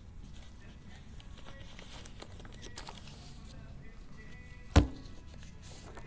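Paper handouts rustling and shuffling as they are pulled from a binder and flipped, with small clicks throughout and one sharp knock near the end.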